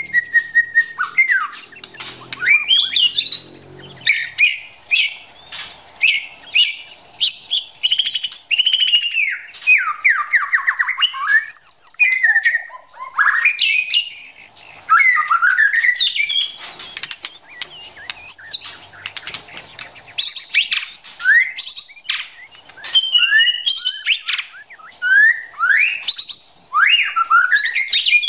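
White-rumped shama singing: a fast, varied stream of rising and falling whistled phrases mixed with short chattering and scratchy notes, with only brief gaps.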